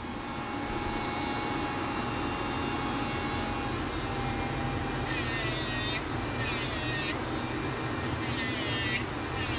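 Dremel rotary nail grinder running with a steady whine, and from about five seconds in its sanding band grinds a small dog's toenails in several short bursts of higher grinding sound.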